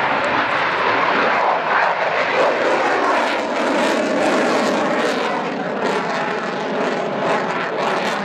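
Twin Klimov RD-33 turbofans of a MiG-29 fighter in flight, a loud, steady jet noise with a faint whining tone running through it.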